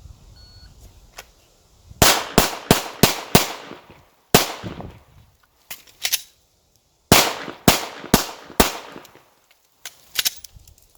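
A shot timer beeps faintly, then a Glock 17 9mm pistol fires five quick shots about a third of a second apart, and a single shot a second later. After a pause with a couple of lighter clicks during the reload, four more quick shots follow, then a few light clicks of the malfunction being cleared.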